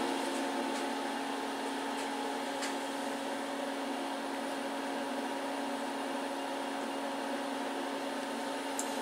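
Steady electrical hum made of a low tone and a higher one over a faint hiss, with a few light taps as a phone is set against a motor housing.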